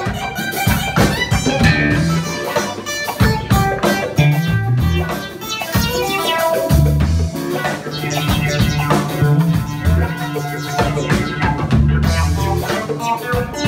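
Band music: guitar, bass guitar and drum kit playing a steady groove, with repeated bass notes and regular drum hits.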